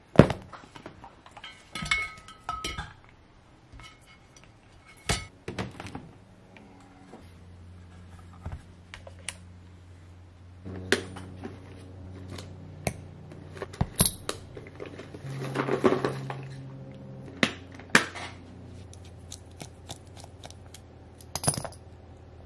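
Small hard parts and hand tools being picked up and set down on a workbench mat: scattered clicks and clinks, a few ringing briefly, as an RC speed controller with its wires is handled. A steady low hum comes in about a third of the way through.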